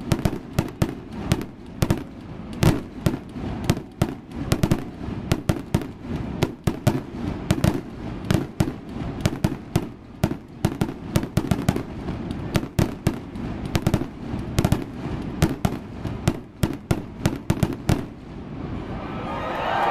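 Fireworks display: a rapid, irregular barrage of sharp firework bangs and crackles, several a second, that stops about eighteen seconds in as crowd noise starts to swell.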